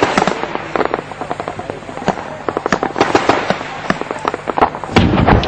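Combat gunfire: a rapid, irregular crackle of many overlapping small-arms shots, with a louder, longer blast of noise near the end.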